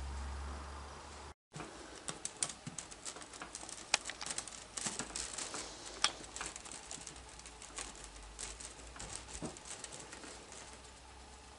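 Sphynx kitten scrambling in a wicker basket of artificial flowers and out onto a wooden railing: a run of irregular crackling rustles and light clicks from the wicker, the plastic leaves and its claws, thinning out near the end. A low steady hum before it cuts off about a second in.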